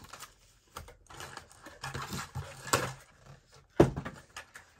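Cardboard and paper packaging being handled and pulled open: scattered rustles, scrapes and clicks, with one sharp knock just before the end.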